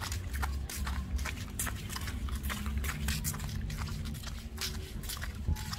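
Footsteps and handling noise of a hand-held phone while walking: irregular soft clicks and rustles over a low wind rumble on the microphone.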